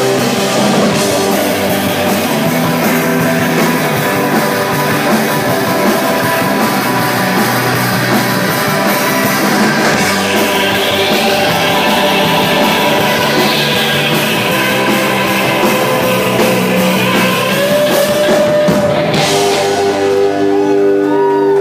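A rock band playing live: electric guitars and drums in a steady, full stretch of the song. Near the end, a crash is followed by a held chord ringing on.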